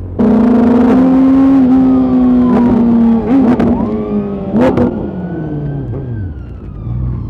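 A vehicle engine cuts in suddenly, held at high revs with two quick blips near the middle, then the revs fall away as it slows.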